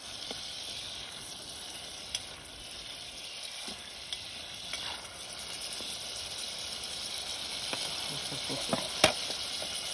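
Fish sizzling as it cooks, a steady hiss with a couple of sharp pops.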